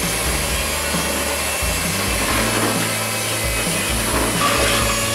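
Electric hand mixer running steadily, its beaters churning through a thick cake batter of eggs, condensed milk and flour in a plastic bowl.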